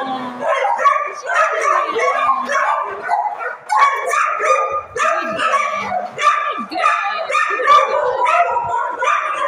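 Several kennelled shelter dogs barking and yipping at once, their barks overlapping without a break.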